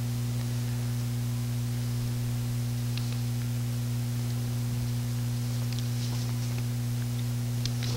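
Steady low electrical hum with a faint hiss from the sound system, with a few faint paper rustles at the pulpit about three seconds in, around six seconds in and near the end.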